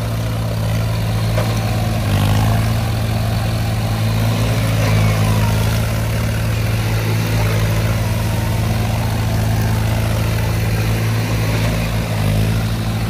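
John Deere 5050 E tractor's diesel engine running hard under load in a steady drone, its rear tyres spinning and churning through deep mud and water while towing a stuck New Holland tractor, whose engine runs close behind.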